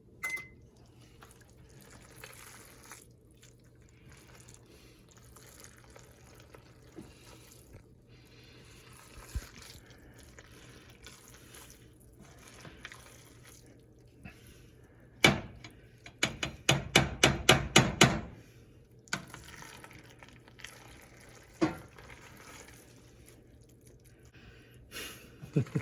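A short electronic beep from the oven's control panel as it is switched on to preheat. About fifteen seconds later come kitchen clatter and a quick run of sharp knocks from utensils and dishes, with a few single knocks after it.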